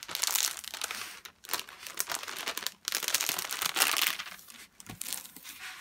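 Thick clear plastic protective film over a diamond painting canvas crinkling and crackling as a hand handles and smooths it, in several bursts with short pauses between.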